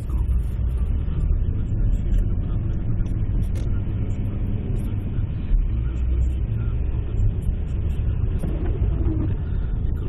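Steady low rumble of a car on the move, heard from inside the cabin: engine and tyre noise with a hiss of road noise above it.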